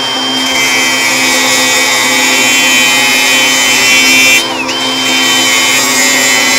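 Small handheld rotary multitool with an abrasive cut-off disc cutting through a rusty steel exhaust pipe: a steady high whine over a grinding hiss. About two-thirds of the way through the whine briefly drops in pitch and level, then picks back up as the cut goes on.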